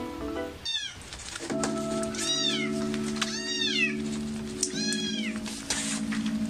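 A very young kitten mewing: a few high, thin calls, each rising then falling in pitch, starting about two seconds in. Background music with held notes plays underneath.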